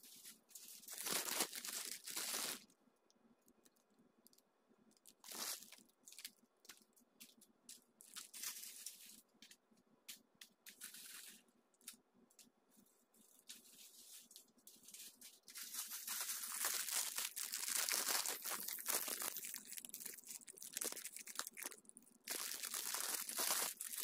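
Crinkling and rustling of plastic wrappers and foil snack bags being handled, in short bursts with pauses, then a denser, louder stretch of crinkling from about sixteen seconds in.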